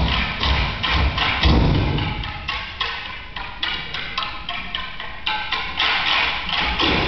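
A cappella tap dance: tap shoes and wooden sticks striking in a fast, dense rhythm. Heavier stamping thuds come in the first second or so, then lighter, quieter clicking through the middle, building again near the end.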